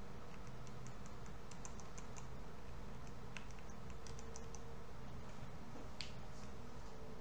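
Light clicking of a computer keyboard and mouse, short clicks in small scattered clusters, over a steady low background hum.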